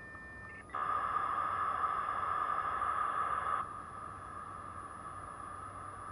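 US Robotics V.Everything 56K modem's V.34 handshake over a VoIP line, heard through the modem's speaker. A steady high tone gives way, under a second in, to about three seconds of loud hissing noise, then a quieter steady tone.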